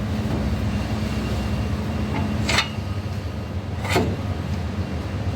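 Steady low engine hum, with sharp clinks over it: a faint one about two seconds in, then two louder ones about two and a half and four seconds in.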